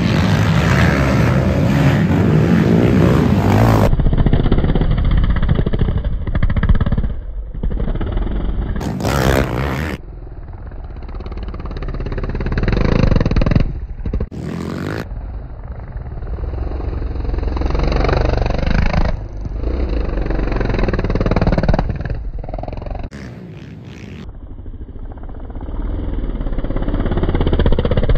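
Racing ATV (quad) engines running and revving as the quads pass on a dirt course, heard as a string of short clips, each swelling and fading, with abrupt cuts between them.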